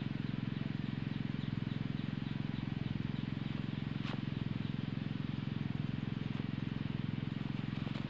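A steady low drone with a fast, even pulse, like a small motor running.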